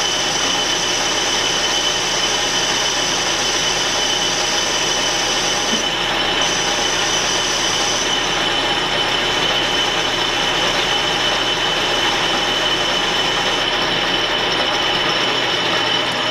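Metal lathe running under a boring cut inside a threaded metal part: a steady mechanical noise with a steady high whine over it. This is the next-to-final pass.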